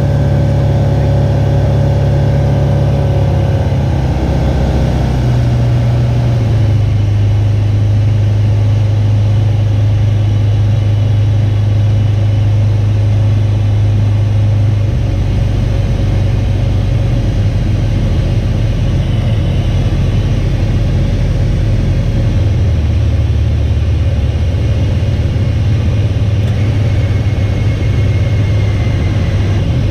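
FK14 Polaris light aircraft's engine and propeller heard from inside the cockpit, a loud, steady low drone that shifts in pitch a few times.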